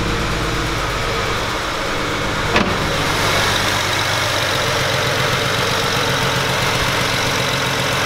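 BMW 335i's N54 twin-turbo straight-six idling just after starting, with a slight stumble from a cylinder 2 misfire. A brief knock about two and a half seconds in.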